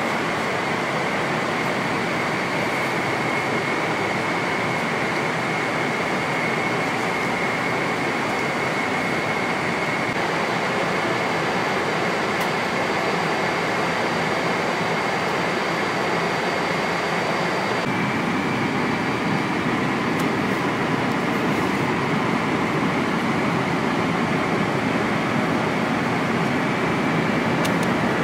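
Steady in-flight cabin noise of a Boeing 777-300ER at cruise: an even rush of airflow and engine noise with a faint high whine held through it. The noise shifts and grows slightly fuller about two-thirds of the way in.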